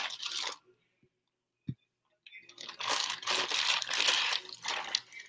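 Clear plastic packaging bag crinkling and rustling as it is handled and pulled out of a box, starting a little after two seconds in and lasting about three seconds, after a single soft knock.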